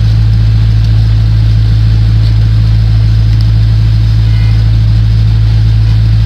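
A loud, steady, low, engine-like hum with no change in pitch or level, plus a few faint small ticks.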